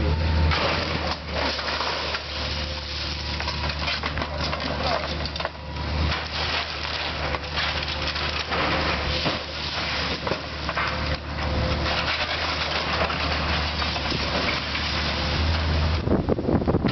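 Heavy demolition machinery running steadily, with repeated crunching, cracking and splintering of wood and debris as the building is torn down; a louder burst of cracking comes near the end.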